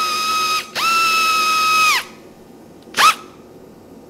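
Electric drill motor whining at a steady high pitch, stopping for a moment, spinning up again for about a second, then releasing, with one short trigger blip about a second later, as fasteners are run out of the car's front-end brackets.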